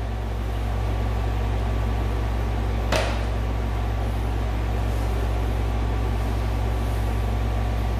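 Steady low hum with a faint hiss in a small room, broken once by a light click about three seconds in.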